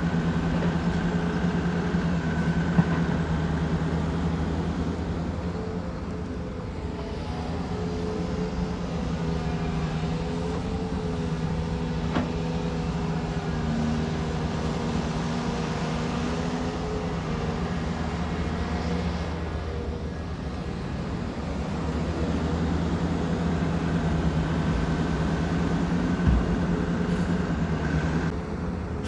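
Diesel engine of heavy construction machinery running steadily, its pitch shifting a little with load, with a few sharp knocks scattered through.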